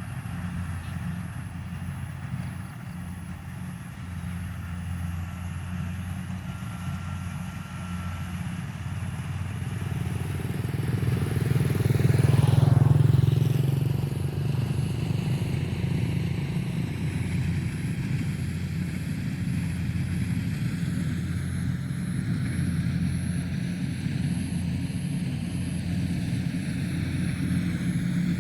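An engine running steadily, swelling louder for a few seconds about halfway through and then settling back.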